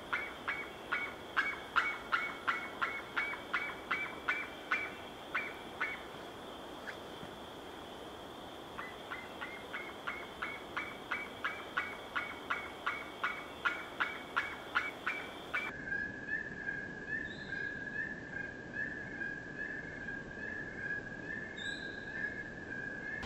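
Cauca guan calling: a rhythmic series of short, gobbling calls, about two or three a second, that stops for about three seconds and then starts again, over a steady high tone. After about sixteen seconds the calls give way to one steady shrill note.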